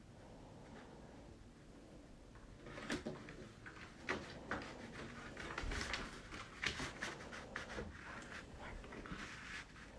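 Stiff paper stencil sheets handled and shifted on a tabletop: irregular rustles and light taps, starting about three seconds in.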